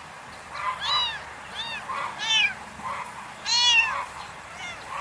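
Kitten meowing repeatedly: about five short, high-pitched meows, each rising and then falling in pitch, the loudest about three and a half seconds in.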